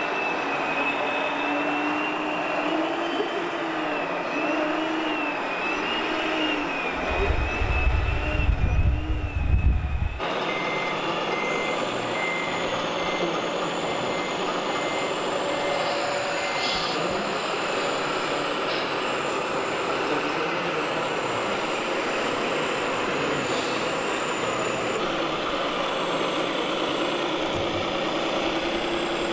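Scale RC trucks' electric drive motors and gearboxes whining, the pitch wavering up and down with the throttle. Partway through there is a loud low rumble for about three seconds, and after a cut a reversing beeper sounds about twice a second for some six seconds.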